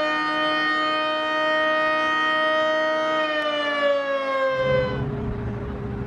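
Outdoor warning siren sounding a steady tone, then winding down with its pitch falling until it cuts off about five seconds in, giving way to a low outdoor rumble.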